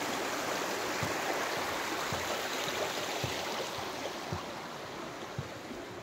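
A small, shallow stream rushing over stones, easing a little toward the end as it is left behind, with dull footsteps thudding about once a second.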